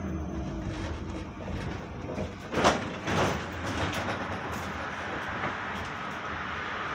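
Inside a GT6N tram running along the track: a steady rumble of wheels and running gear, with two louder knocks about two and a half and three seconds in.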